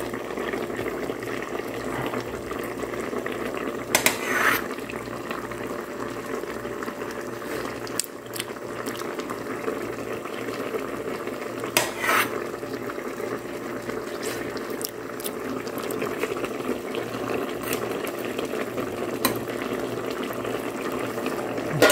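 Chicken simmering in sauce in an aluminium pot, bubbling steadily, while a ladle stirs and knocks against the pot a few times, most clearly about four seconds in and again about twelve seconds in.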